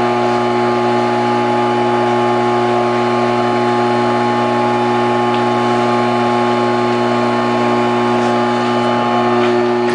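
Craftsman flex-drive 1-1/16 HP capacitor-start AC motor (Sears 62963, 3450 rpm), removed from its table saw, running steadily with no load: an even electric hum and whir. It runs well.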